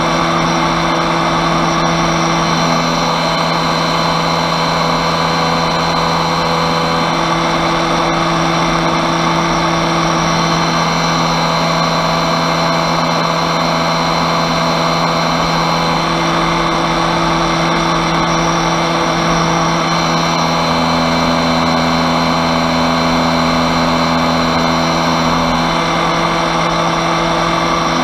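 Small petrol engine of a powered paving weed brush running steadily at high speed, its brush head scraping moss and dirt from block paving.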